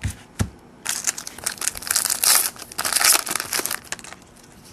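Foil trading-card pack wrapper being torn open and crinkled, after two light knocks at the start.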